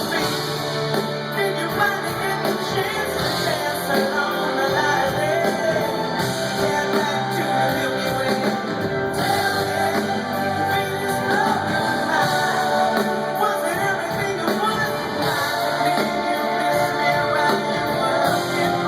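Live rock band playing, with a lead vocal singing over electric guitar and band, heard from the audience in a large venue.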